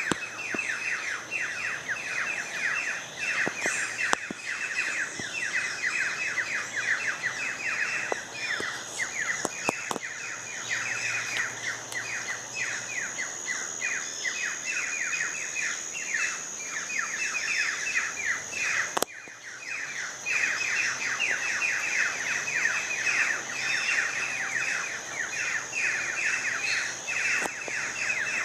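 A bird chorus: many birds chattering at once in a dense, continuous run of quick falling notes, with a thin steady high tone behind them. A sharp click about two-thirds of the way through briefly dips the sound.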